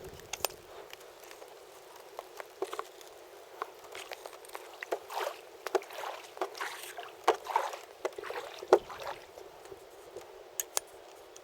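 Canoe on the move: irregular paddle swishes and splashes with light knocks against the hull, over a steady hiss of rain.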